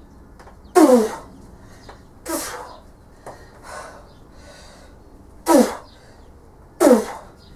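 A woman's short, forceful grunts of effort, four loud ones and a fainter one, each falling in pitch, as she strains to bend a Grade 5 steel bolt by hand.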